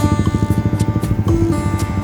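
Background music with plucked guitar, held notes over a dense rhythmic low pattern.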